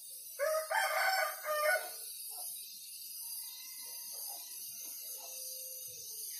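A rooster crowing once, one call of about a second and a half, followed by fainter bird calls.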